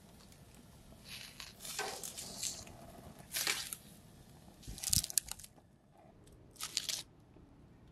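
Charred, dry corn husks crunching and crackling as metal tongs grip and lift whole husk-on ears of corn off a grill grate, in several short bursts. The loudest comes about five seconds in, with a dull knock.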